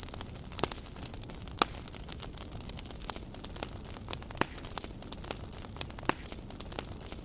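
Wood campfire crackling, with irregular sharp pops and a handful of louder snaps scattered through, over a low steady background noise.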